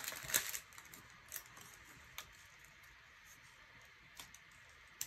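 Crinkling of a sticker sheet as a sticker is peeled off, dying away within the first half second, followed by a few faint ticks and taps as the sticker is handled and placed on a paper planner page.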